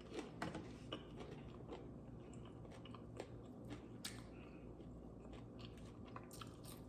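A person chewing and biting food close to the microphone, with faint crunches and wet mouth clicks at irregular moments.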